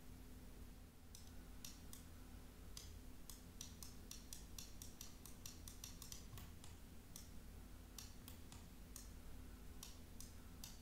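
Near silence with faint, irregular clicks from working at the computer, sometimes a few a second, over a low steady hum.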